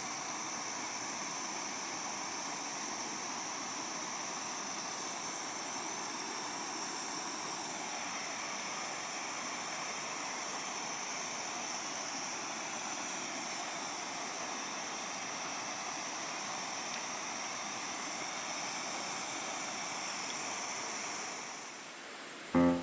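Gas camping stove burner running with a steady roaring hiss, fading away near the end.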